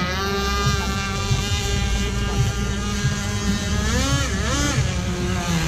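Radio-controlled speedboat running at speed across the water, its motor holding a steady high pitch, then dropping and climbing back again about four seconds in.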